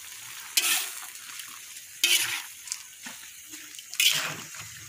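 Rabbit meat frying in a wok over a fire, with a steady sizzle. The meat is stirred three times, about every one and a half seconds, and each stroke of the spatula brings a short burst of scraping and louder sizzling.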